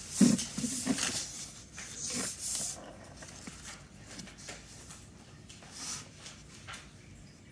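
Loud handling noise in the first second as markers are picked up and moved, then felt-tip marker strokes rubbing faintly on paper.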